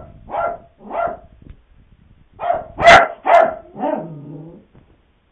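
Puppy barking in alarm at a Halloween prop: two sharp yappy barks, a short pause, then four quick barks ending on a lower, drawn-out note.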